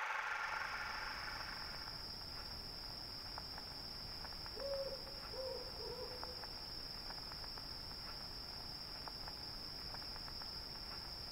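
Night ambience of crickets chirping steadily over a low rumble, with an owl hooting three times in quick succession about five seconds in.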